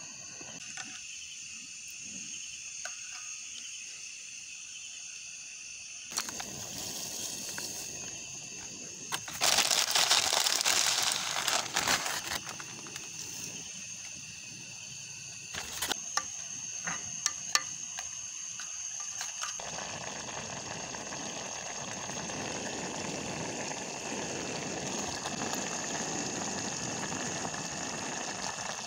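Steel pot of vegetable vermicelli soup on a camp gas stove, with steady high insect chirring throughout. A loud rustling stretch comes about ten seconds in, when the vermicelli goes in. A few clicks follow, and a steady bubbling boil fills the last third.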